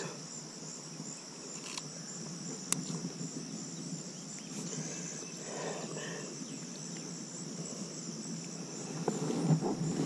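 A steady, high-pitched chorus of insects such as crickets, with a low wash of shallow river water under it. Near the end, louder sloshing and splashing as a bass is lowered into the water.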